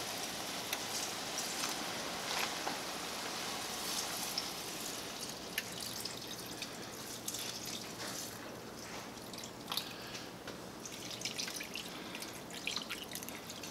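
Stock poured from a glass measuring jug into a hot cast-iron skillet of raw paella rice: a steady pouring and trickling of liquid, with a few faint clicks.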